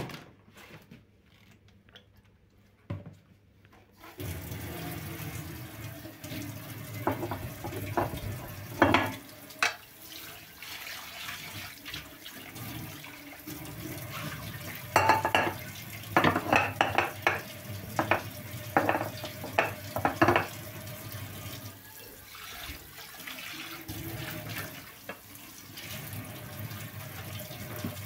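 Kitchen tap turned on about four seconds in and running steadily into a stainless steel sink while a frying pan is washed under it. Sponge scrubbing and the pan knocking and scraping against the sink come in loud bursts, with a few lighter clicks before the water starts.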